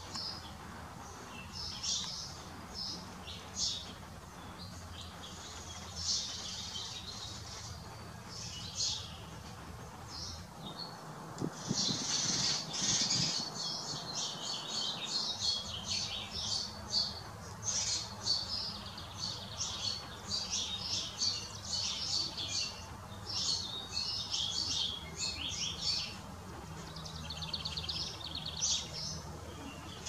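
Wild songbirds chirping and singing: many short high calls and song phrases overlapping, growing busier from about twelve seconds in, over a faint low steady hum.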